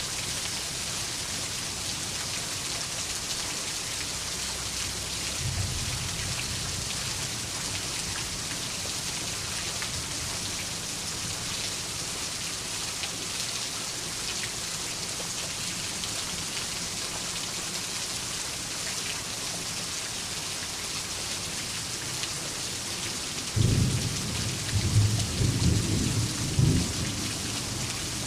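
Steady heavy rain with a soft distant thunder rumble a few seconds in, then a louder rolling thunderclap near the end that surges several times before fading back into the rain.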